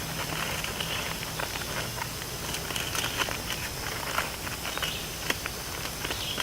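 Aluminium foil crinkling and crackling in irregular clicks as it is rolled up and folded into a cooking packet.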